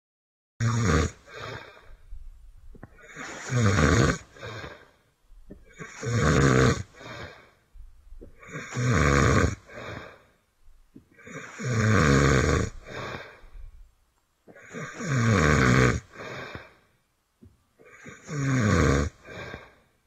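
Snoring of an animated tree stump character: seven loud snores at an even pace, about every three seconds, with a quieter breath between each.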